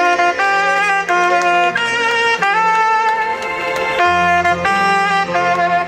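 Instrumental music: a melody of held notes over a bass line, played as a fanfare once the count reaches 90.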